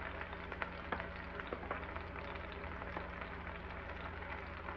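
Diced onion, sweet pepper and tomato frying gently in oil in a skillet: a faint sizzle with scattered small crackles, over a steady low hum.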